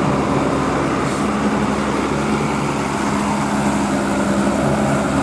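Large tour bus diesel engine running steadily with a low, even drone as the bus moves past in the convoy.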